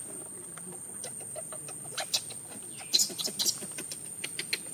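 Dry fallen leaves crackling and rustling under macaques moving over the leaf litter, with a loud cluster of crackles about two seconds in and again about three seconds in. A short falling chirp-like call sounds near three seconds, over a steady high-pitched whine.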